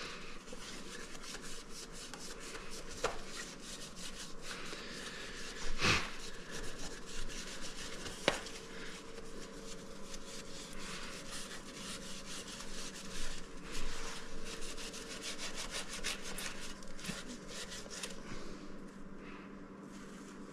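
A cloth rubbing and wiping over the glass panels and metal edging of a stained-glass light shade in repeated short strokes, scrubbing off old kitchen grease and grime. A couple of sharper knocks come about six and eight seconds in.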